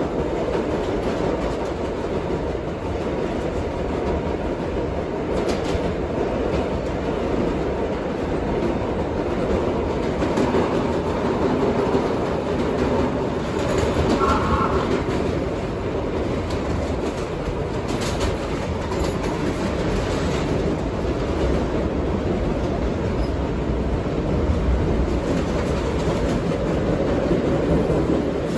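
Vintage R1/R9 subway cars running at speed, heard at the car's end door: a steady rumble of wheels on rail with clickety-clack over the rail joints and a few sharp clicks. A brief squeal comes about halfway through.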